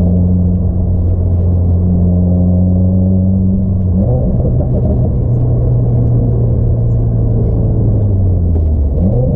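Subaru WRX's flat-four engine running with a steady low rumble. Its pitch steps up suddenly about four seconds in, holds, then dips and climbs again near the end.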